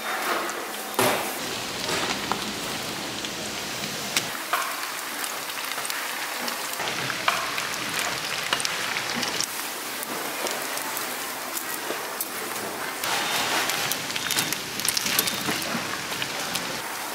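Battered snacks deep-frying in a pan of hot oil: steady sizzling with many small crackling pops, a little louder about thirteen seconds in.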